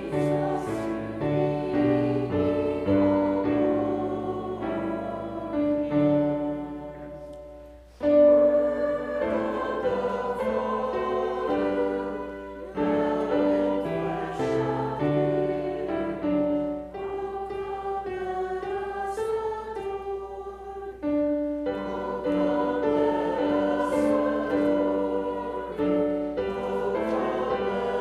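Church choir singing a sacred piece in phrases of held chords, with short breaks between phrases; the singing fades just before a strong re-entry about eight seconds in.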